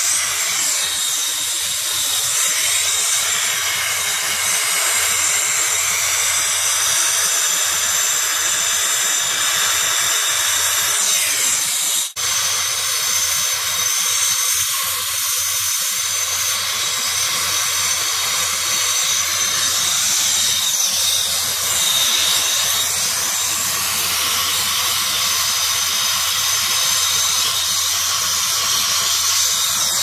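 Brazing torch flame hissing steadily as copper refrigerant line joints on a heat-pump compressor are brazed, with one brief break about twelve seconds in.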